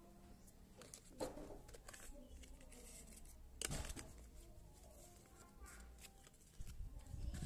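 Faint handling noises of phone-box packaging, paper and cardboard rustling and tapping as the contents are picked up, with two sharper taps about a second in and about three and a half seconds in.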